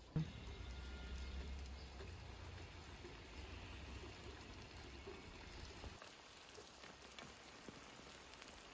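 Potato-stuffed pies frying in hot oil in a wide pan: a faint, steady sizzle.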